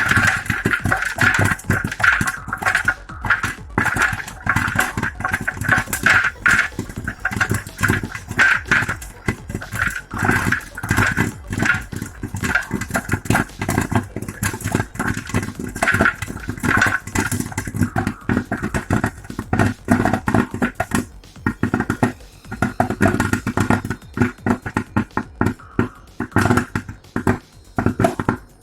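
Popcorn kernels popping in an electric popcorn popper: a rapid, dense crackle of pops over a steady motor hum, thinning out near the end as the kernels finish popping.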